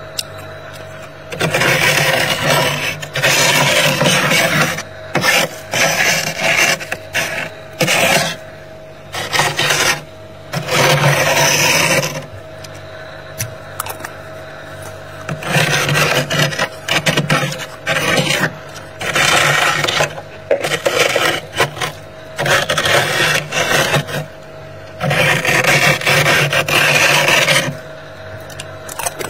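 A metal tool scraping thick, snow-like freezer frost in a long series of strokes, each lasting one to two seconds, with a pause of a few seconds midway. A faint steady hum runs underneath.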